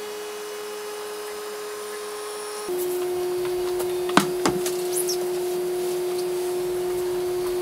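Steady electrical hum of a UV exposure unit. About two and a half seconds in it drops slightly in pitch and gets louder, and two sharp clicks come a little past halfway as the glass-covered print is pushed into the unit.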